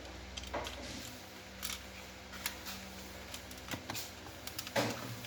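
Small clicks and taps of a tiny metal hair clip being worked into a CYMA airsoft shotgun's shell holder, the loudest click near the end, over a steady low hum.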